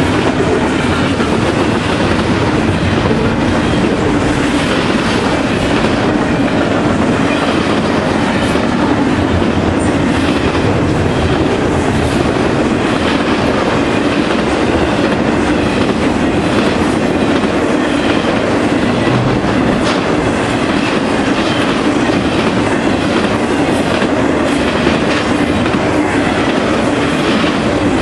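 Intermodal freight train of double-stack container cars and trailer-carrying flat cars rolling past close by at speed. Its wheels on the rails make a loud, steady rumble, with irregular clicks as they pass over rail joints.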